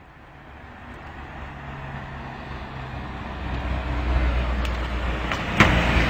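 A light truck's engine running and growing steadily louder as it approaches and passes close by, with a sharp knock about five and a half seconds in.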